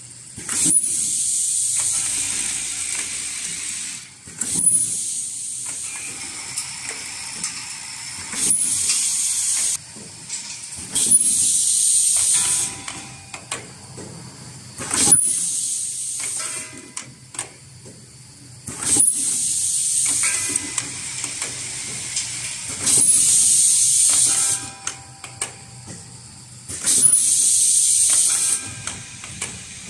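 Fully automatic ultrasonic plastic welding machine with a rotary indexing table and vibratory bowl feeders running through its cycle. A sharp clack and a burst of hiss lasting a second or two repeat about every four seconds, over a steady low hum.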